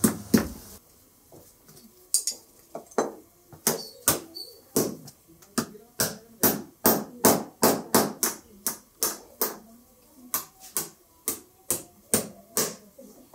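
Small hammer tapping nails through a tin-sheet collar around a coir broom head, about three quick, sharp metal strikes a second, with brief pauses about a second in and again about two thirds through.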